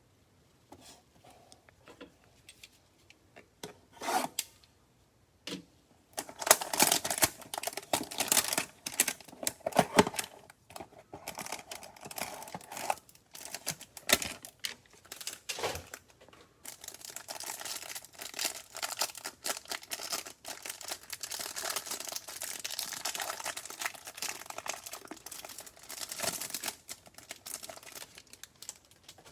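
Plastic wrap and cardboard packaging of a trading-card hanger box being torn and crinkled as it is opened. A few light clicks and rustles come first, then steady crackling and tearing from about six seconds in until just before the end.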